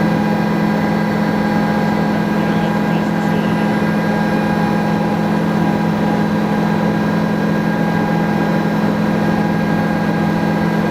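Helicopter in flight: a steady, unchanging drone of engine and rotor with several held whining tones.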